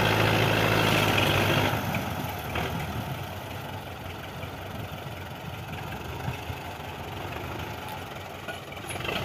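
Belarus tractor diesel engine running hard with a loud steady drone, then dropping to a quieter, rough idle a little under two seconds in.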